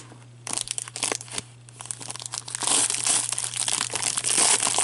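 Foil trading-card pack wrapper crinkling as gloved hands handle it, in uneven bursts that grow denser and louder from about two and a half seconds in.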